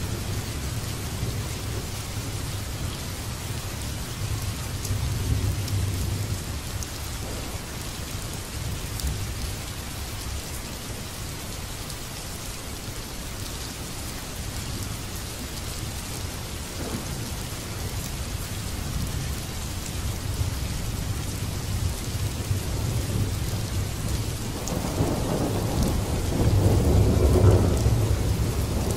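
Steady rain with a low rolling rumble of thunder underneath. A louder roll of thunder swells up about three quarters of the way through and peaks near the end.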